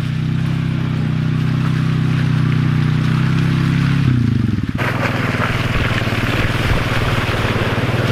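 Honda ATV's single-cylinder engine running steadily under load as the quad drives through thick mud in four-wheel drive. About five seconds in the sound changes suddenly to a much nearer, harsher engine beat with more hiss over it.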